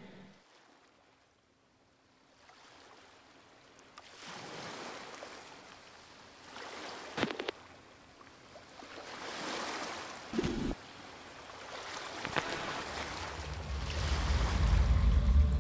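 Wind and waves washing on a shore, an even rushing that swells and fades in several surges, broken by two brief sharp sounds. A low droning tone builds up near the end and becomes the loudest sound.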